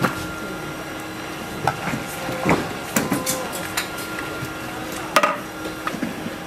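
A metal ladle scooping soup from a large stockpot, clinking and knocking against the pot and bowls at irregular moments, loudest about five seconds in, over a steady hum.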